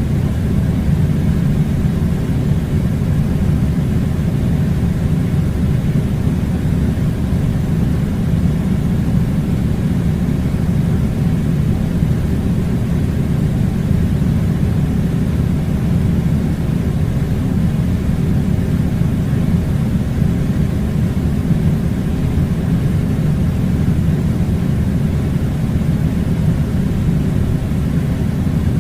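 Air conditioning unit blowing: a loud, steady, low rumbling rush of air that never lets up.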